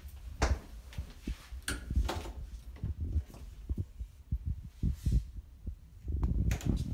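Irregular low thumps and rustles of a handheld phone being carried and moved around a small room.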